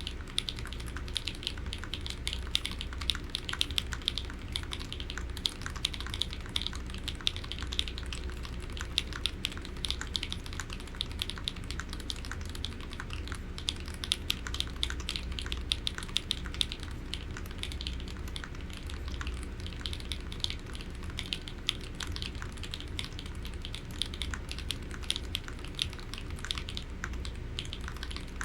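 Continuous typing on an HHKB Polaris keyboard fitted with lubed Novelkeys Cream linear switches, a brass plate with plate and case foam, and EPBT PBT keycaps: a dense, steady stream of key clicks.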